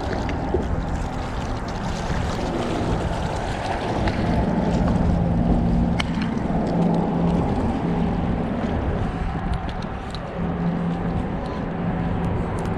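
An engine running with a steady hum, over a constant wash of wind and water noise.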